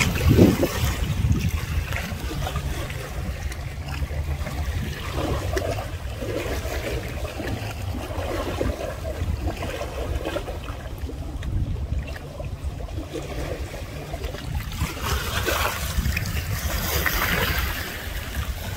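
Steady low rumble with trickling, splashing water over it and a knock right at the start.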